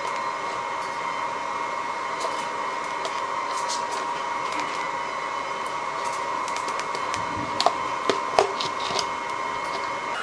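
TIG welder running with a steady high-pitched hum while a corner of a steel square-tube frame is tack-welded. A few light metal clinks come near the end.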